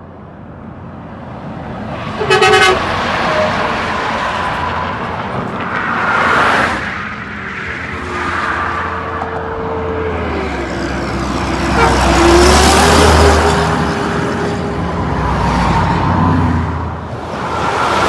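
A truck's horn gives one short toot about two seconds in, as heavy trucks pass on the highway. A low rumble of diesel engines and tyre noise builds and is loudest in the second half, as trucks go by close.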